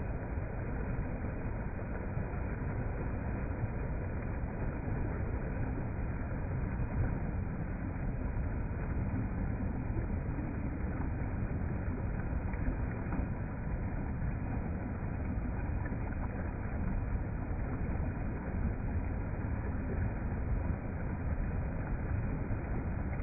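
River water rushing past, a steady, even noise weighted toward the low end.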